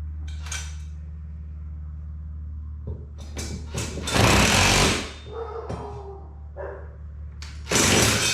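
Impact driver running in two short bursts, about four seconds in and again near the end, driving lag bolts into the ceiling studs. Smaller clicks and knocks come between the bursts.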